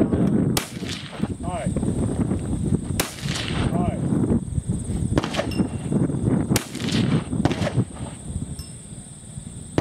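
AR-15 rifle shots fired at an unhurried, irregular pace, about five in all. The loudest come about half a second, three seconds and six and a half seconds in.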